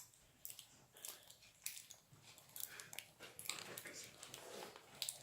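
Faint, scattered clicks and rustles of objects being handled, at a low level.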